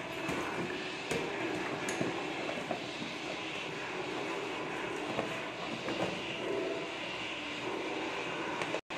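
A beagle puppy tussling with a large rubber ball on a tiled floor: scattered light knocks and claw clicks over a steady rumbling noise, with a brief dropout near the end.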